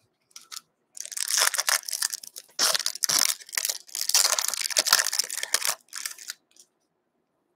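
Foil wrapper of an O-Pee-Chee hockey card pack being torn open and crumpled by gloved hands: a run of crackling, crinkling rustles that stops about six seconds in.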